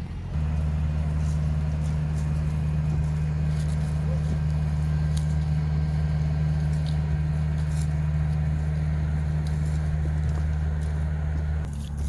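Steady low drone of a vehicle's engine and running gear, holding one even pitch; it starts just after the beginning and cuts off sharply near the end.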